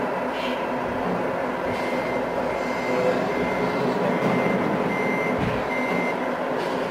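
Electronic reversing beeper of a radio-controlled tipper truck's sound module, six evenly spaced high beeps, about one a second, over a steady background hum.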